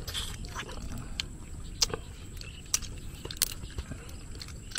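Eating cooked crab by hand: scattered sharp clicks and small cracks of crab shell being picked apart, with mouth and lip smacks, over a low steady rumble.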